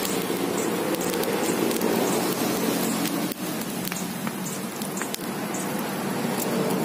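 Open charcoal-and-wood fire burning under a skewered milkfish: a steady crackling hiss with scattered sharp pops.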